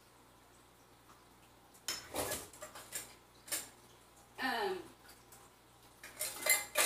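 Kitchen items clinking and clattering in several separate bursts, starting about two seconds in, as a kitchen drawer is opened and rummaged through for a jar lid. A brief falling squeak comes about halfway through.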